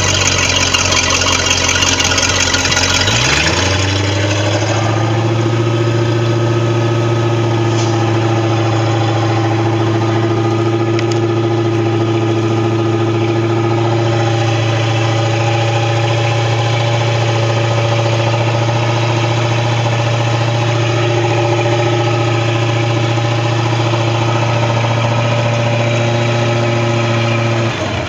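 Tahoe boat engine running on a test run: its speed rises about three seconds in, holds steady, then drops back near the end. It starts and runs and seems to be okay, now that a faulty breaker that stopped it turning over has been replaced.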